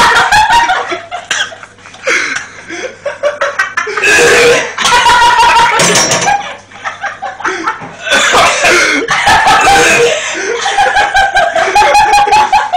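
A man coughing and gagging on a mouthful of ground cinnamon during the cinnamon challenge, mixed with bursts of laughter.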